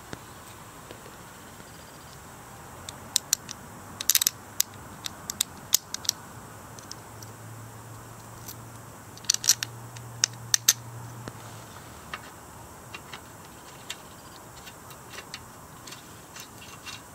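Scattered sharp metallic clicks and clinks of tools and hardware being handled, in two busier clusters, with a faint low hum for a few seconds in the middle.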